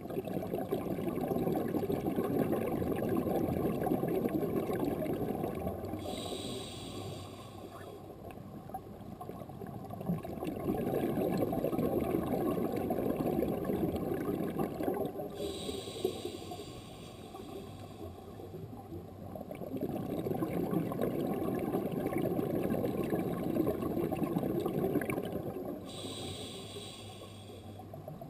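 Scuba diver breathing through a regulator, heard underwater: a bubbling gurgle of exhaled air lasting several seconds, then a short hissing inhalation through the regulator, three breaths about ten seconds apart.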